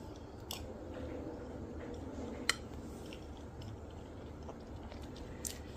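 Quiet room noise with a few faint sharp clicks, the loudest about two and a half seconds in.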